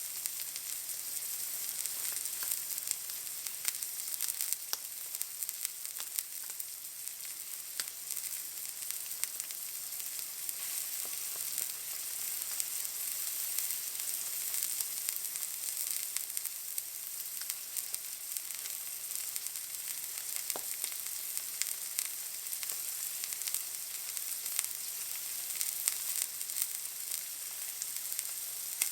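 Steak searing in a hot pan: a steady high-pitched sizzle with frequent small crackles and pops.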